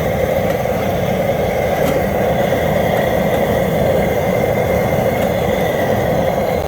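Propane burner under a large stockpot running at full flame: a loud, steady rushing noise.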